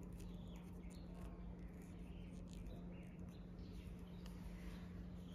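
Faint crinkling, ticking and small squeaks of Kinder Joy egg wrappers and plastic capsules being handled and opened, over a steady low hum.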